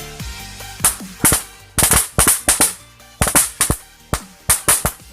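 Roll caps going off in quick, irregular clusters of sharp cracks, starting just under a second in. Electronic background music fades out at the very start.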